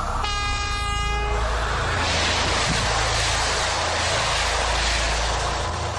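Train horn sounding for about a second and a half, then the loud rushing rumble of the train passing directly over.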